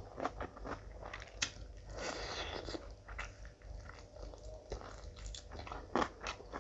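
Close-miked eating sounds of a person chewing and biting food, with many short wet smacks and clicks. The loudest click comes about six seconds in.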